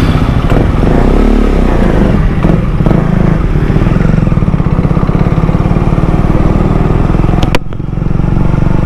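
KTM Duke 250 single-cylinder motorcycle engine with an aftermarket exhaust, running as the bike is ridden off at low speed, the revs rising and falling a little early on. A sharp click and a brief drop in sound come near the end.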